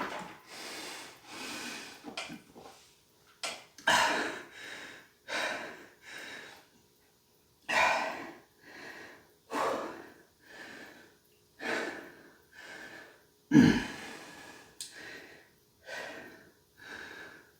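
A man breathing hard and fast, out of breath from exercise, with short in-and-out breaths about every half second to a second and one sharper, louder puff about three-quarters of the way through.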